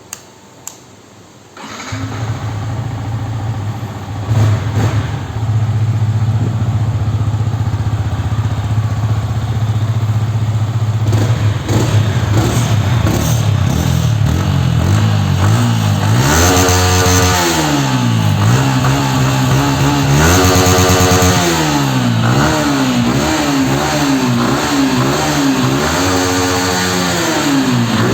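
Yamaha R15 V3's 155 cc single-cylinder engine on its stock exhaust, cold-started: a couple of clicks, then the engine catches about two seconds in and idles steadily. Past the middle it is revved up and back down twice in long sweeps, then blipped in quick repeated revs near the end.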